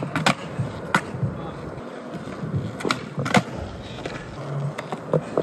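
Skateboard landing a flip trick over a rock gap with sharp clacks of the deck and wheels hitting the concrete, then the urethane wheels rolling over concrete, with a few more board clacks along the way.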